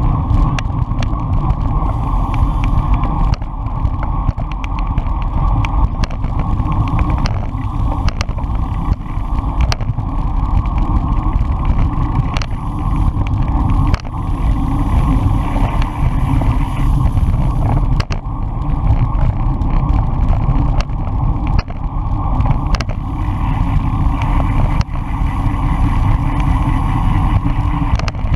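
Wind buffeting and road rumble on a bicycle-mounted action camera riding at race speed in a pack of road bikes: a loud, steady low rumble, with scattered sharp clicks from jolts in the road.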